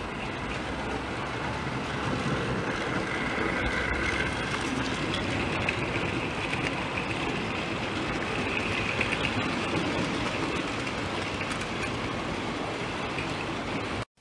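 Model train running along the track, picked up by a camera riding on the train: a steady rolling rumble of wheels on rail with a faint motor whine. It cuts off abruptly near the end.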